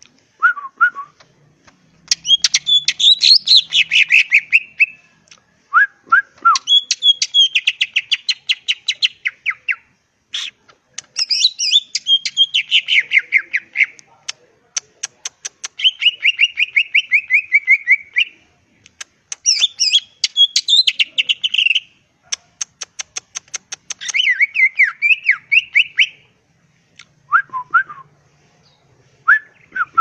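Cucak ijo (greater green leafbird) singing in loud, rapid stuttering phrases (ngentrok). Each phrase is a quick run of repeated notes, about ten a second, sliding down in pitch, and the phrases alternate with short, lower whistled notes and brief pauses.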